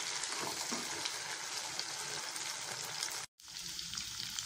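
Chicken pieces sizzling in butter in a non-stick kadai, with a spatula scraping and stirring through them. The chicken is cooked through and frying down. The sizzle cuts out for a moment about three seconds in, then carries on.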